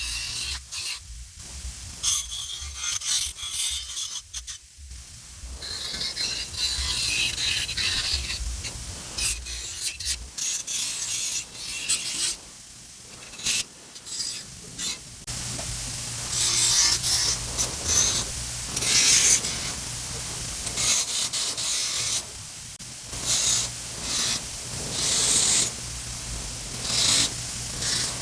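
Repeated strokes of abrasive rubbing and scrubbing on the rusty steel of an old tool box, taking off the rust, in bursts that start and stop every second or so.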